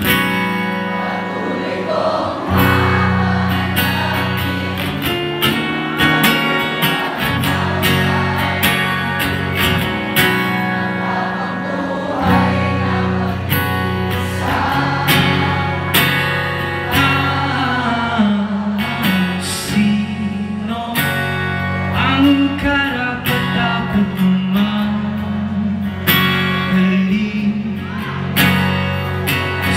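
A male singer singing live while strumming an acoustic guitar, accompanying himself, played through a stage sound system.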